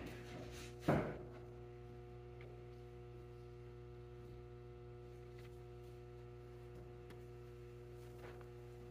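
Steady low electrical mains hum, with a brief louder sound about a second in and faint handling noises near the end.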